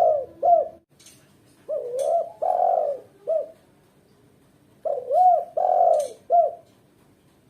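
Female spotted dove cooing: the end of one phrase, then two full phrases about three seconds apart. Each phrase is a short coo, a longer drawn-out coo and a short closing coo, each note rising and falling in pitch. This is the calling of a hen in breeding condition, the sound used to lure and rouse males.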